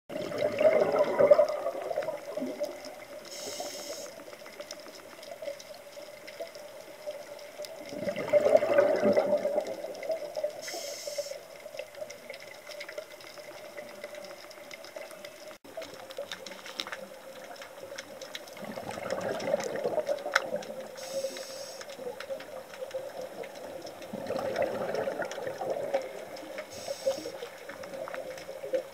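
Scuba diver breathing through a regulator underwater: a bubbly rush of exhaled air four times, several seconds apart, with a short faint hiss of inhaling between them.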